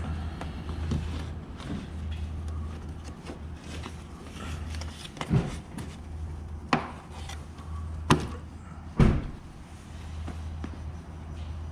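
Four short sharp knocks and clunks, the last one the loudest, over a steady low hum.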